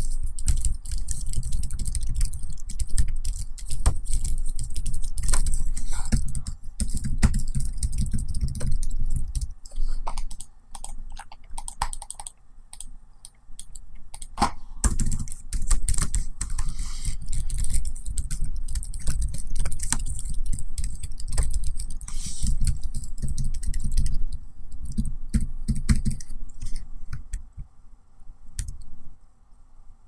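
Typing on a laptop keyboard: a dense, continuous run of key clicks that thins out about a third of the way in, picks up again, and stops shortly before the end.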